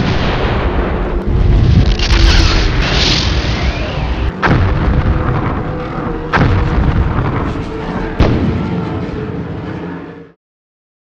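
Battle sound effects: a continuous loud din of gunfire and explosions, with several sharp blasts about two seconds apart. It cuts off suddenly near the end.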